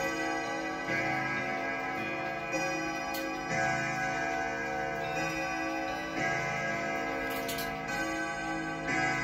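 1930s Kienzle bim-bam grandfather clock striking on its gong rods: ding-dong strokes roughly every second and a half, each ringing on long into the next, over the steady tick of the pendulum.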